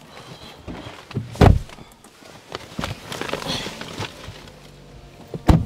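A car's passenger door opened with a thump, rustling and small knocks as someone climbs into the seat, then the door slammed shut just before the end.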